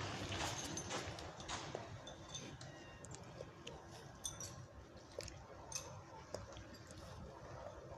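Faint crackling and rustling of dry fallen leaves under a cat's paws, in many small irregular clicks.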